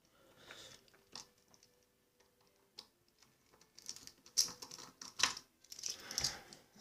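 Scattered light clicks and scrapes of a screwdriver and small metal parts being handled on a padlock as it is taken apart, busier in the second half.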